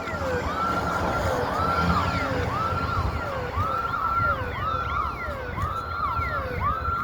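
Electronic alarm siren sounding a fast repeating pattern, about two cycles a second, each rising to a held high note and then dropping, with echoes trailing each cycle. It is taken for a building's burglar alarm set off while the premises are closed, though the listener is unsure what kind of siren it is.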